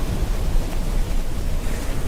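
Ocean surf and rain: a steady rushing wash of water noise with a deep rumble underneath.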